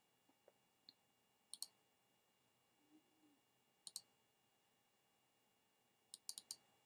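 Faint computer mouse clicks in near silence: a quick double-click about one and a half seconds in, another about four seconds in, and a short run of clicks near the end.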